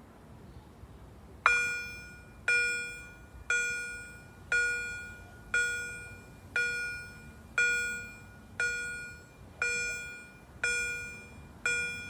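Railway level crossing's electronic warning bell (Auer Signal acoustic signaller) starting about one and a half seconds in and ringing about once a second, each ding dying away before the next: the crossing has been activated for an approaching train.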